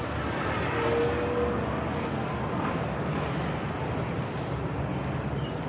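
Steady street traffic noise from vehicles on the road alongside, with a short steady tone about a second in.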